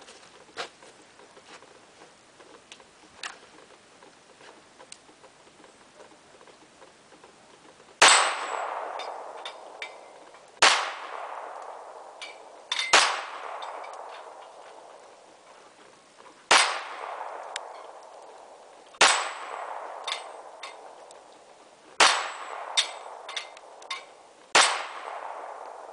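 Smith & Wesson SW1911 pistol fired seven times at a slow, steady pace, a shot every two to three seconds starting about eight seconds in. Each shot has a long echoing tail and the clang of hanging steel plate targets being hit.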